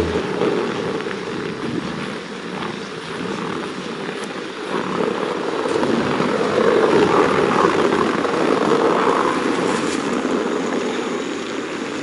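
A car's engine running as the car drives slowly past, a steady low drone that grows somewhat louder about halfway through.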